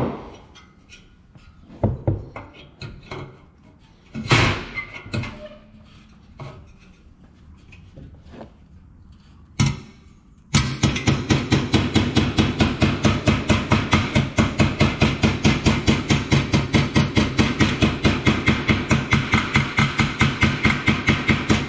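Ball-peen hammer tapping a sheet-metal bracket on a metal tube frame. A few separate knocks and handling of the metal parts come first. About ten seconds in, a fast, even run of taps starts, roughly five a second, and keeps going.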